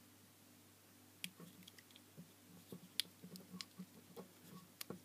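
Faint scattered clicks and scrapes of a craft knife slitting the heatshrink sleeve off a small LED driver module.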